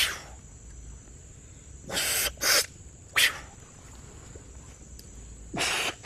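A shaman blowing hard through his lips onto a patient's head in a ritual cleansing blow. Short hissing blows come a second or two apart, mostly in pairs.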